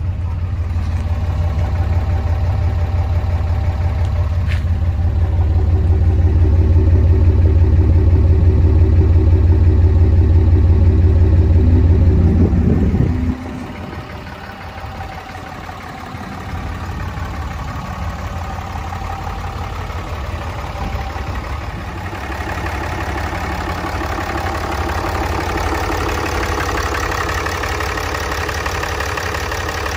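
A 6.7-litre Cummins inline-six turbo diesel in a 2015 Ram 2500, idling. Heard from behind the truck, a deep, steady rumble dominates until it drops suddenly about thirteen seconds in. Near the end, at the open engine bay, the engine's higher clatter and whine come up.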